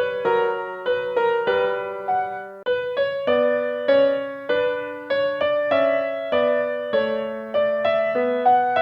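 Background piano music: a gentle melody of single struck notes, each ringing and fading, with a brief break nearly three seconds in.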